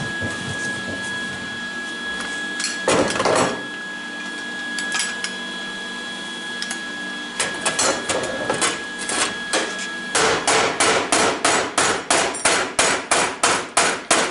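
Body hammer pounding on a steel chock: scattered blows at first, then a fast even run of strikes, about three to four a second, from about ten seconds in. A steady high tone runs under the first part and stops when the fast hammering begins.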